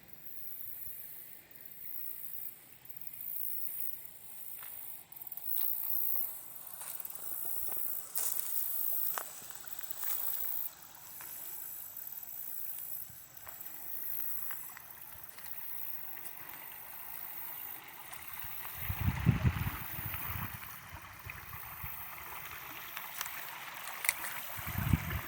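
Shallow creek water running over rocks, with a steady high whine. About two-thirds of the way through, and again near the end, there are low rumbling bumps on the microphone.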